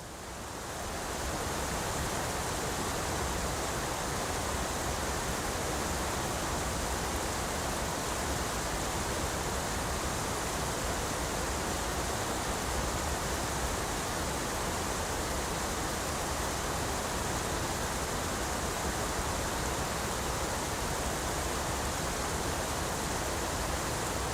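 Waterfall: a steady, dense rush of falling water that fades in over about the first second and a half, then holds even.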